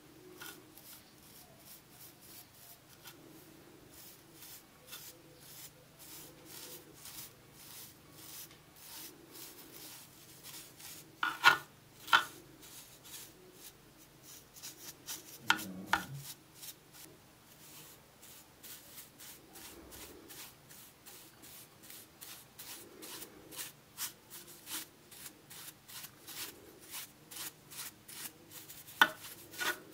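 Bristle brush scrubbing dust and loose rust off the metal body of an old hand plane, in quick strokes about three a second. A few louder knocks come a third of the way in, around the middle and near the end.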